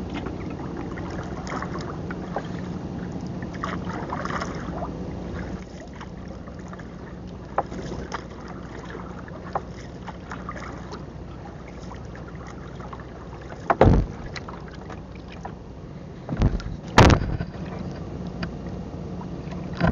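Small boat engine running steadily at a constant pitch, with a few sharp knocks on the wooden hull near the end as longline gear is handled.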